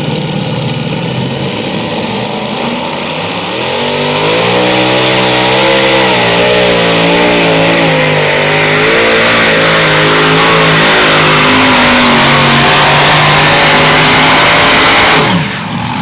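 Multi-engine modified pulling tractor with supercharged engines running at the line, then throttling up about three seconds in and running at full power under load as it drags the sled, the pitch wavering. The sound drops sharply about a second before the end.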